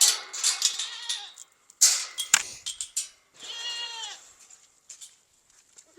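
Hungry goats bleating for feed, with a wavering call near the start and another long call a little past the middle, over rustling and several sharp knocks, the loudest about two seconds in.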